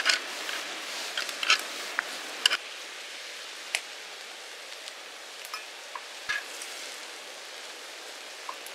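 Ramen in broth sizzling and bubbling on a hot shovel griddle over a wood fire, with sharp clicks of metal tongs against the griddle. The clicks are thickest in the first two and a half seconds, with scattered clicks and crackles after that.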